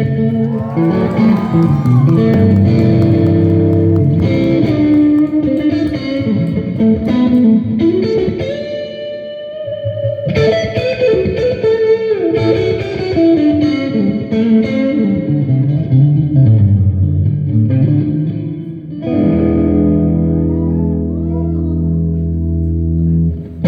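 Guitar playing an instrumental song intro live, picked notes and chords ringing one into the next, easing off briefly partway through, then settling on a long held low chord near the end.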